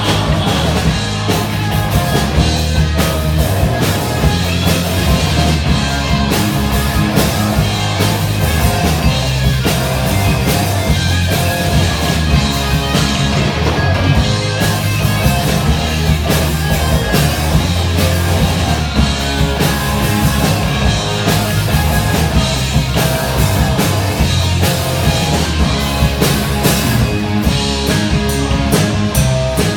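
Instrumental rock music with drum kit and guitar, playing without vocals.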